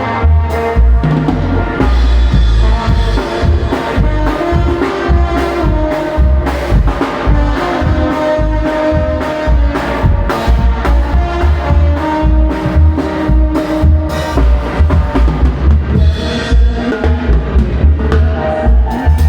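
A tierra caliente banda playing live and loud: a drum kit keeps a steady beat over a heavy bass while several instruments hold sustained notes.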